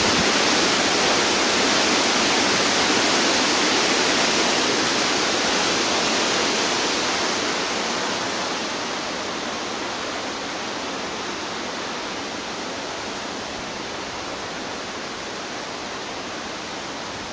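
Fast mountain river rushing in white water at a small waterfall: a steady, full noise of water that grows gradually fainter over the second half.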